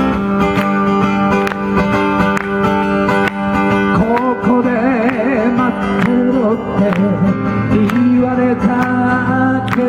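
Acoustic guitar strumming chords, with a male voice starting to sing about four seconds in.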